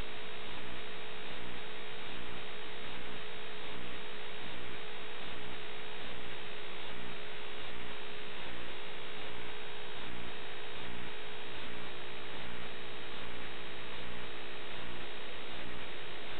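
Steady electronic hiss and hum with a constant tone and a slow, regular swell about once a second. It is the static of an analog FPV video link's audio channel.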